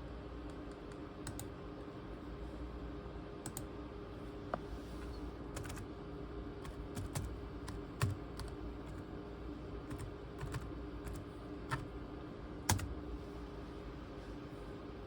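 Laptop keyboard keys clicking in slow, irregular keystrokes on a ThinkPad T23, a few strokes sharper than the rest, over a steady low hum.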